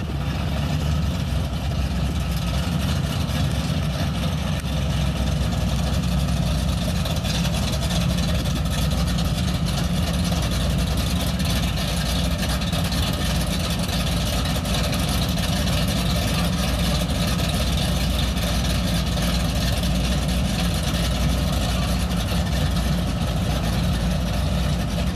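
Chevrolet Impala SS 5.7-litre LT1 V8 engines idling together with a steady low rumble.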